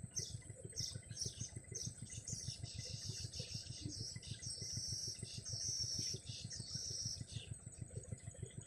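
Small birds calling in a rapid run of high-pitched chirps, short falling notes mixed with longer held ones, that stops near the end. Under them runs a steady, fast, low throbbing.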